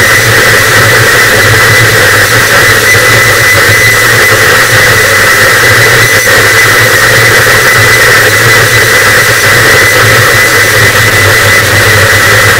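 Harsh noise wall: a very loud, dense and unchanging wall of distorted static, with a low droning band and a thin steady high tone running through it.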